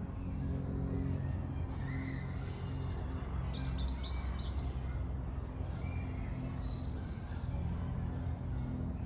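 Steady low hum of road traffic and engines, with small birds giving short chirps and calls over it, mostly in the middle stretch.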